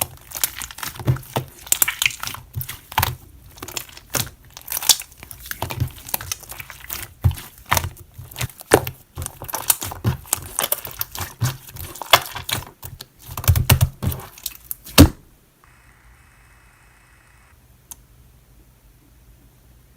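Rapid, irregular clicks and crackles, close up, that stop abruptly about fifteen seconds in.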